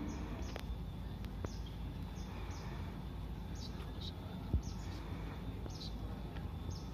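Outdoor ambience: a small bird chirping over and over, with short high chirps about once a second, over a steady low background noise. There are a couple of faint knocks.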